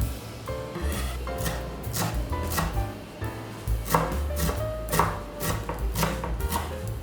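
Kitchen knife chopping on a cutting board, about two strikes a second, over background music.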